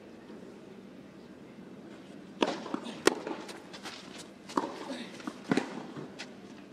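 Tennis balls struck with rackets during a rally on a clay court: several sharp hits, beginning about two and a half seconds in after a quiet stretch of low background noise.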